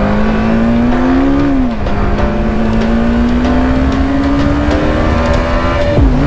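BMW G 310 GS single-cylinder engine accelerating under way, its pitch rising, then dropping at a gear change just under two seconds in and climbing slowly again, with a brief dip near the end. Low wind rumble on the microphone.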